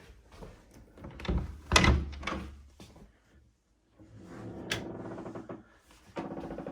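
Several knocks and one loud thud, like a door or cupboard being handled, followed about four seconds in by a steady pitched sound that becomes a fast, even pulsing near the end.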